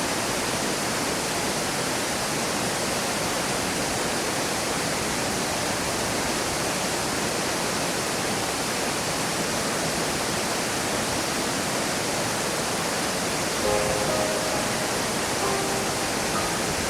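Steady rush of water from a mountain stream and waterfall. A few soft, sustained music notes come in near the end.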